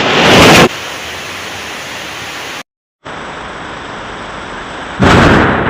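Steady rain-like hiss, broken by a loud noisy crash right at the start and another near the end, with a brief cut to silence midway.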